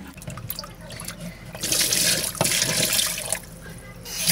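Hands squeezing raw chicken wings in a bowl of soaking water, with small wet splashes. About one and a half seconds in, the water is tipped out into a stainless steel sink as a loud rushing splash lasting about two seconds, and it then goes quieter.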